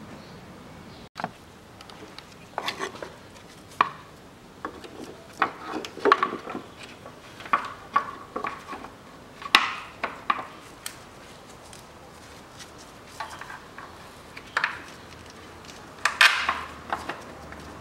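Irregular clinks, taps and knocks of tools and parts being handled at the engine's front end, as the lower timing-belt cover and crankshaft pulley bolt are fitted, with a short cluster of knocks near the end.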